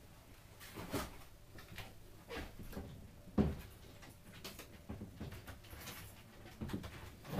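Scattered soft knocks and thumps of someone moving about inside a small sailboat cabin, the loudest about three and a half seconds in.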